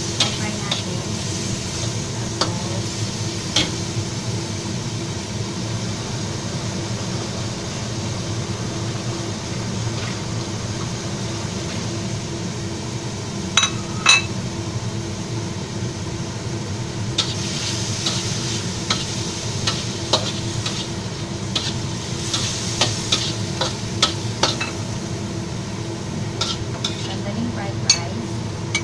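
Marinated pork cubes sizzling in a wok over a gas flame while a metal spatula stirs and scrapes through them. Sharp clinks of the spatula against the wok come now and then, with two loud ones about halfway through and many more in the last ten seconds. A steady low hum runs underneath.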